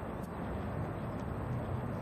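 Steady low roar of a Boeing 727's three Pratt & Whitney JT8D turbofan engines at takeoff power, heard from well behind the aircraft as it rolls away on its takeoff run.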